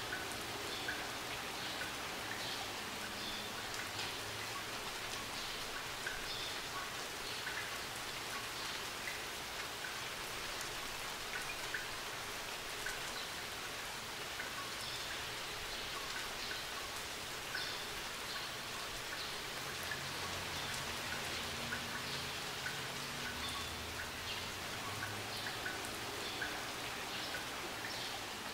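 Steady hiss with a dense, even patter of tiny ticks, like light rain.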